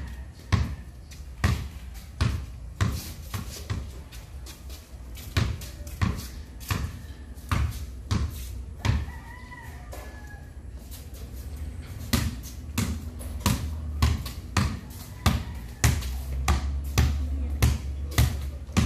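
A basketball being dribbled hard on a concrete surface during cone dribbling drills: a run of sharp bounces, about two a second, with uneven spacing.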